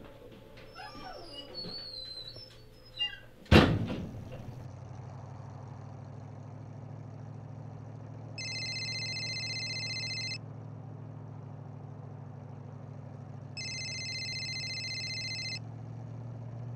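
A door shuts with one loud thud about three and a half seconds in, followed by the steady low hum of a car's engine and road noise heard inside the car. A phone's electronic ringtone sounds twice, each ring about two seconds long and about five seconds apart.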